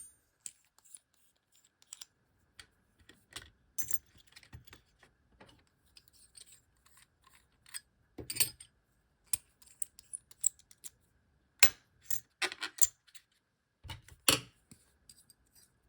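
Small metal utensil pieces of an Outlery travel cutlery set clicking and clinking as they are handled, unscrewed and packed into their case: irregular light clicks with a few sharper clinks.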